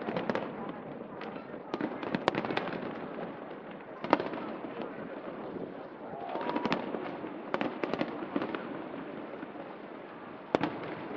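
Aerial fireworks bursting: irregular sharp bangs and pops, some in quick clusters, over the steady murmur of a large crowd.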